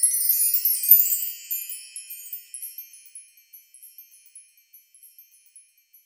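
A cascade of high tinkling wind chimes, a sparkle sound effect under the glowing logo animation. It is loudest in the first second or two, then thins out and fades away.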